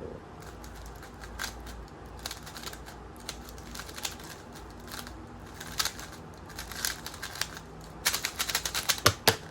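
Plastic layers of an X-Man Tornado V3M 3x3 speed cube clicking as it is turned quickly during a timed solve. The clicks come irregularly, then in a fast, louder flurry near the end as the solve finishes.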